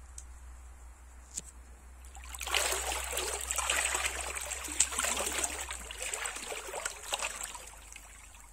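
Water splashing and trickling in the shallow river, starting a little over two seconds in and dying away near the end.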